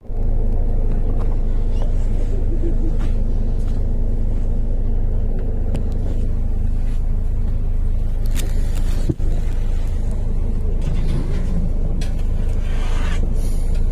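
Steady low rumble of a bus engine heard from inside the bus, with a couple of short clicks about two-thirds of the way through.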